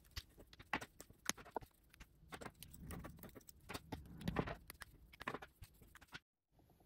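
Plastic ink pens being uncapped, capped and handled: a quick run of sharp clicks. In the middle a pen scratches across paper in short test strokes. The sound cuts off abruptly near the end.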